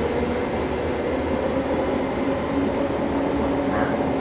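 Cabin noise of an SMRT C651 metro train in motion: a steady low rumble of the running gear with a whining tone that sinks slightly in pitch.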